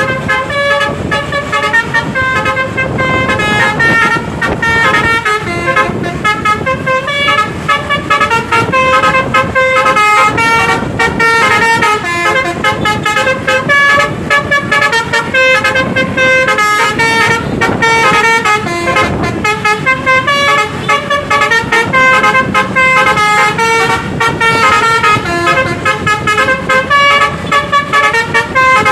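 Basuri multi-note musical horn on a bus playing a long melody, its notes changing several times a second, over a low rumble.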